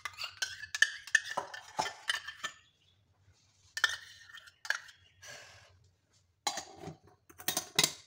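Stainless steel lunch box containers and lids clinking and clattering as they are handled and fitted together: a run of quick knocks at first, a few single knocks in the middle, and more clatter near the end.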